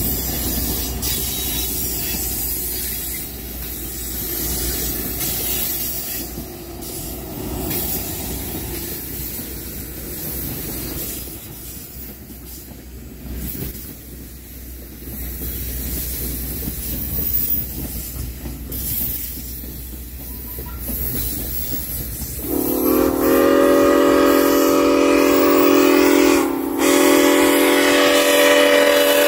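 Passenger cars rolling past with a steady rumble and wheels clicking over rail joints. About three-quarters of the way in, the chime steam whistle of 2-6-6-2 steam locomotive 1309 blows a loud chord, breaks off briefly once, and sounds again.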